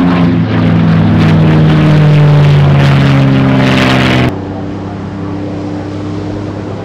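Propeller-driven piston-engine aircraft flying past, its engine note loud and dropping slightly in pitch. About four seconds in it cuts off abruptly to a quieter, steady propeller-engine drone.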